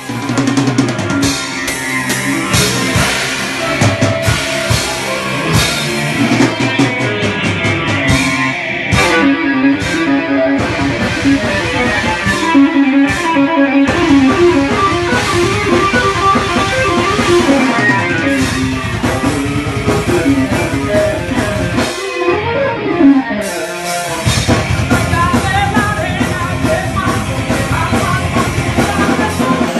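Heavy metal band rehearsing live: distorted electric guitars, bass and drum kit playing loud together, with a few short breaks where the high end drops away.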